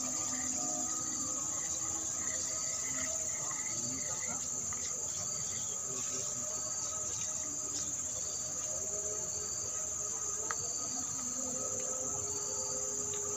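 Steady high-pitched drone of insects chirring, unbroken throughout, with faint scattered short calls underneath.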